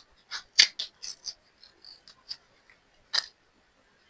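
A 2-ounce plastic jar of acrylic nail powder being worked open: a string of short, sharp plastic clicks and scrapes. The loudest comes about half a second in, with another near three seconds.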